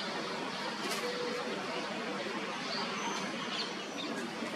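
Wind blowing through a neem tree, a steady rustling hiss, with a few short, high bird chirps scattered through it.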